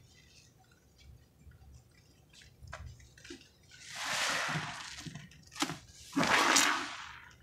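Sponges loaded with thick pine-cleaner lather being squeezed by hand. Faint small wet clicks come first, then two loud, long wet squelches, about four and about six seconds in, with a sharp click between them.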